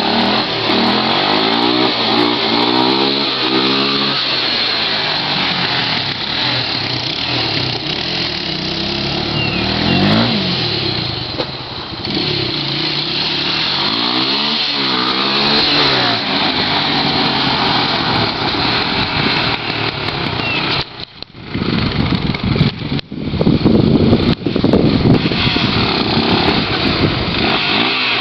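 Honda 300EX quad's single-cylinder four-stroke engine revving up and down, its pitch climbing again and again as it accelerates and shifts, then falling away. About three quarters of the way through there are a few seconds of loud rough noise with brief dropouts.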